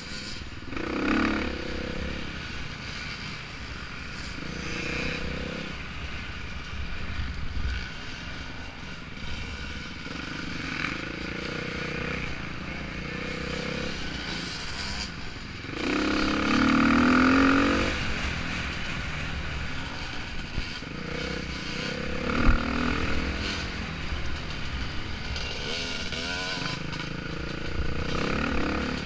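Off-road dirt bike engine being ridden hard, revving up and down through throttle changes, with its loudest rising rev about halfway through. A sharp knock comes a few seconds after that.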